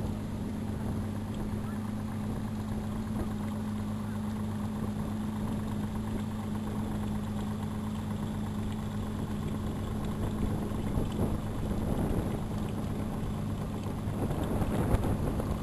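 Motorboat engine running at a steady speed, a constant low hum, with wind and water noise over it.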